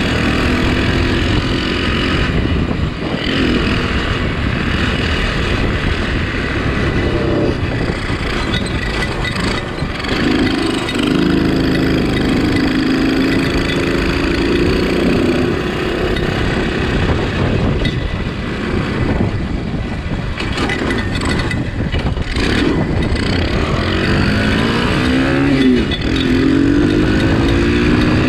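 Homemade shifter go-kart's engine running under way, its pitch rising and falling again and again as it revs up and down, over a steady rushing noise.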